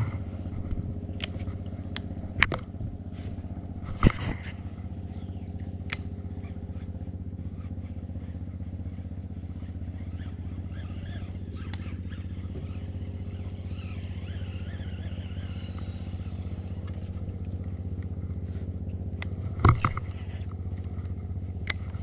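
Small boat engine running at a steady low idle, with a few sharp knocks, the loudest about four seconds in and near the end.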